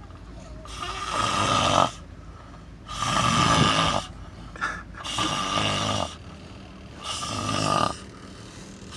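A person snoring: four snores, each about a second long, coming roughly every two seconds.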